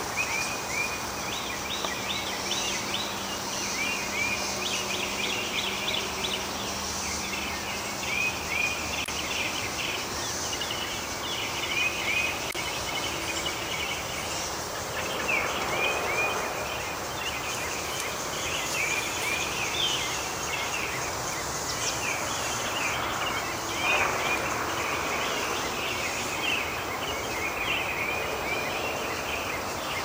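A chorus of songbirds chirping without pause, many short quick notes, over a steady high-pitched hiss.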